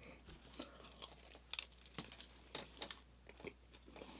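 Faint chewing of a mouthful of bagel breakfast sandwich, with scattered soft clicks and crackles of the mouth and bread.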